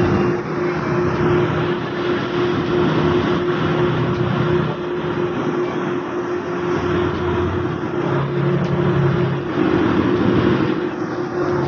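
Offshore crane's engine running under load as it hoists a personnel transfer basket: a steady mechanical hum with a lower drone that swells and fades several times.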